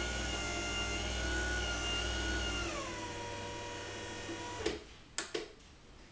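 Merlin QuietDrive roller door opener's motor driving the drive wheel through its down travel during the force test. It runs with a steady whine, drops in pitch about two and a half seconds in as it slows, and stops about a second before the end. A few sharp clicks follow.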